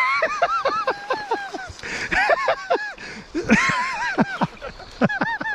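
A man's excited whooping and laughing: quick runs of high, rising-and-falling yells with short breaks between them.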